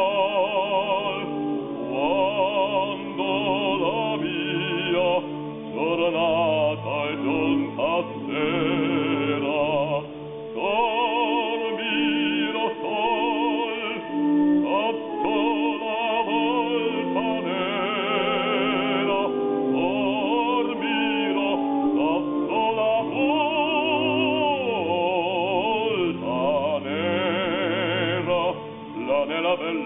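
A man singing solo in an operatic style, holding long notes with a wide vibrato.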